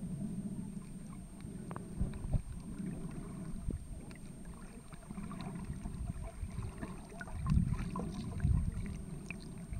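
Water movement heard underwater as a muffled low rumble that swells a couple of times, with scattered faint clicks and crackles.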